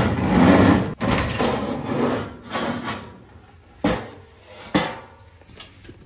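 Sheet-metal blower assembly of a gas furnace being handled and set down: metal scraping and rubbing for the first couple of seconds, then two sharp knocks about a second apart.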